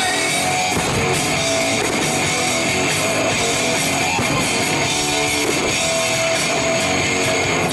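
Rock music with guitar and drums playing loudly and steadily.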